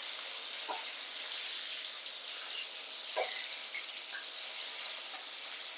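Rohu fish steaks shallow-frying in mustard oil in a kadhai: a steady sizzle, with a couple of light taps of a metal spatula against the pan as the pieces are moved.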